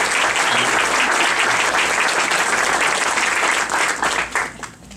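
Room audience applauding, with many hands clapping at once, dying away near the end.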